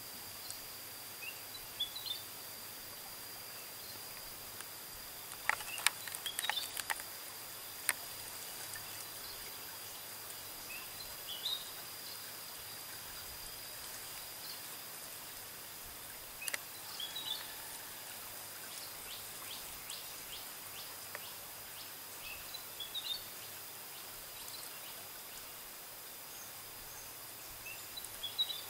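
Quiet woodland ambience: a bird gives short chirping calls every few seconds over a steady hiss and a steady high-pitched hum. A few sharp clicks come about a quarter of the way in and again near the middle.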